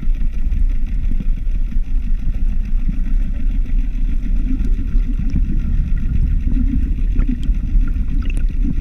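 Steady low underwater rumble picked up by a submerged camera, with a few faint clicks.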